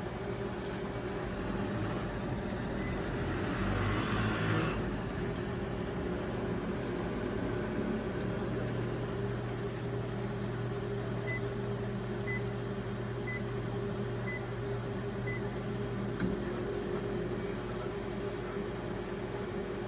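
Brastemp Clean BMP31 microwave oven running on its Auto Re-Heat setting, with a steady electrical hum. A brief hissing rush comes about four seconds in, and five short high beeps sound about a second apart midway through while the hum carries on.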